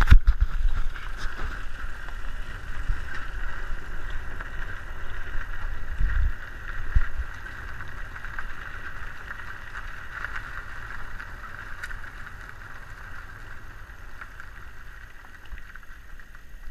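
Wind and road rumble on a camera mounted on the side of a bass boat riding on its trailer while being towed: a steady hiss over a low rumble, with a few bumps about six to seven seconds in, dying down near the end.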